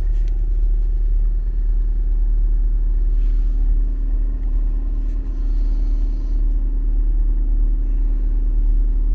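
Heater blower fan of a Renault Logan-platform car running on its third speed: a steady hum over a deep low rumble. The owner finds the blower weak and suspects dust stuck on its impeller is throwing it off balance.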